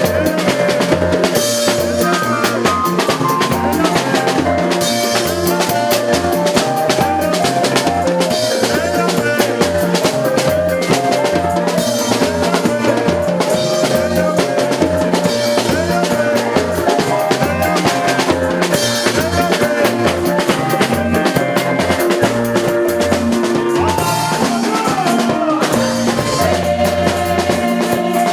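Music with a driving drum-kit beat, bass and melodic lines, steady throughout.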